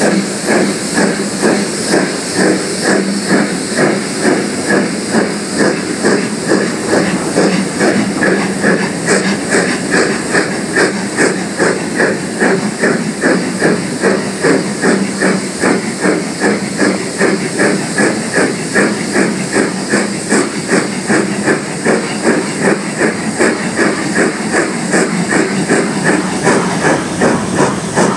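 Steam locomotive working hard as it hauls its train, its exhaust chuffing in a steady, even beat over a constant hiss of steam, heard from a carriage behind the engine.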